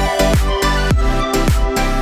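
Electronic background music with a steady kick-drum beat, about two and a half beats a second.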